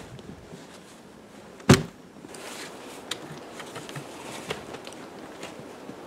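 A single loud, sharp wooden knock about two seconds in as the wooden sled frame comes down onto the snow, followed by footsteps crunching in snow with small scattered knocks.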